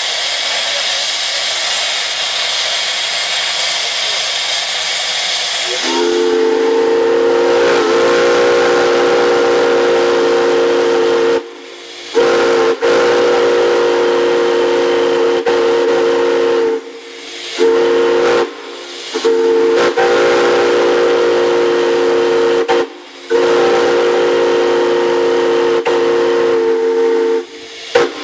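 Steam hissing, then about six seconds in a deep chime steam whistle on a steam locomotive starts. It sounds several long blasts of several notes at once, separated by short breaks, with one short blast among them.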